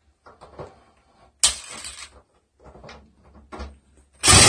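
Cordless drill driving screws through the side of a recessed medicine cabinet into the wall: a short burst about a second and a half in and a louder, longer one near the end, with light knocks and rattles of the cabinet between.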